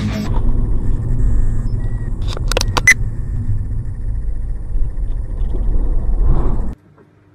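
Dashcam recording of a car driving: steady low road and engine rumble heard from inside the cabin, with a quick run of sharp knocks between two and three seconds in. The sound cuts off suddenly near the end.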